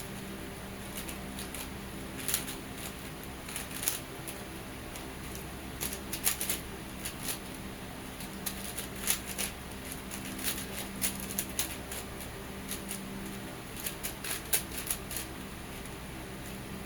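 Moyu Meilong magnetic 4x4 speed cube being turned fast by hand: irregular runs of plastic clicks and clacks as the layers turn and snap into place.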